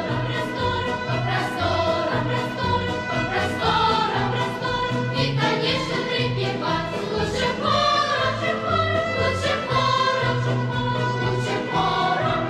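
Background music with choral singing and a regular beat, the accompaniment to a dog-dancing routine.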